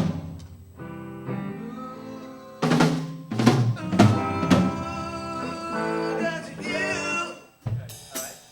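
Band noodling between songs in a rehearsal: scattered drum-kit hits (snare rimshots and bass drum) at irregular times over sustained, ringing instrument notes, with no steady beat.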